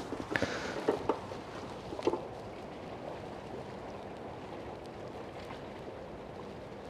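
Wet mesh carp weigh sling hanging from scales, handled with a few light knocks and a brief rustle in the first two seconds, then steady outdoor background noise.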